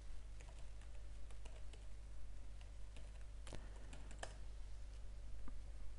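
Computer keyboard typing a username and password: a run of light key clicks, with two louder clicks about three and a half and four seconds in, over a low steady hum.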